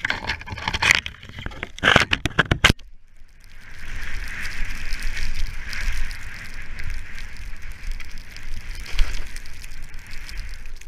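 In the first few seconds, sharp crackles and knocks as the skier pushes through tree branches. Then a steady hiss of skis running through deep powder snow, with low wind rumble on the helmet-mounted camera.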